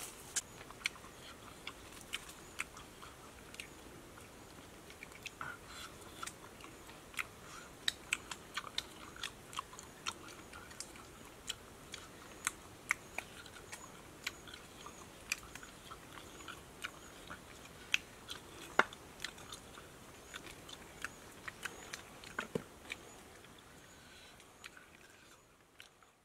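Close-up eating sounds of people biting and chewing roasted pig leg by hand, an irregular run of sharp crunches and clicks. The sound fades out near the end.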